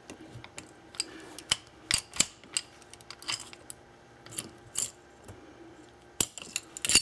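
Irregular sharp metal clicks and clinks of a Colt 1911 pistol's steel slide, frame and barrel being shifted by hand while the barrel link is lined up for its retaining pin.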